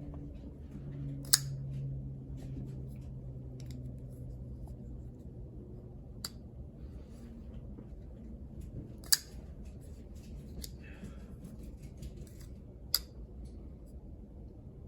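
Petrified Fish PF818 flipper folding knife being flicked open and shut: four sharp metallic clicks of the D2 blade snapping into place, spaced a few seconds apart, over a low steady hum.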